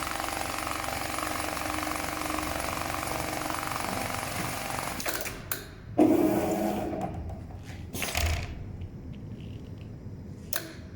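BAS-342GXL CNC programmable pattern sewing machine stitching at speed with a rapid, steady needle rhythm, stopping about five seconds in. A loud clunk with a short ring follows about a second later, then a few lighter knocks.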